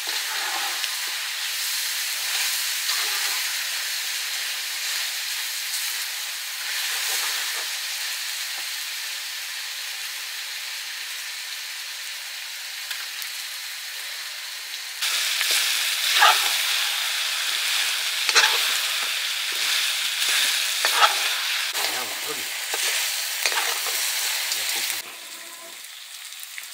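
Chicken curry sizzling as it fries in oil in a pan, stirred with a spoon that scrapes the pan. Halfway through the frying turns louder, with a few sharp scrapes, then drops back suddenly near the end.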